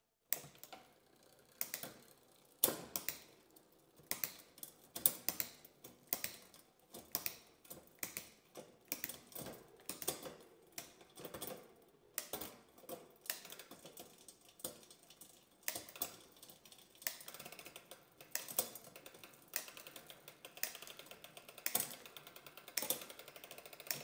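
SRAM Eagle 1x12 bicycle drivetrain shifting on a work stand: the chain runs over the spinning cassette and clicks and clatters as it moves from cog to cog, with a steady chain whir building in the second half. This is shifting through an old, bent rear derailleur on a chain that is one link too short.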